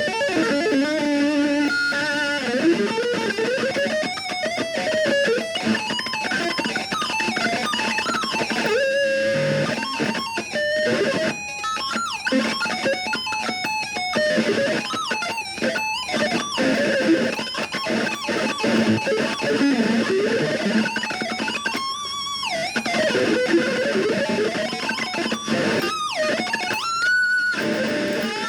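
Ibanez RG electric guitar played through distortion: a run of single-note lead lines with notes bent up and down and wavering, mixed with a few picked chords.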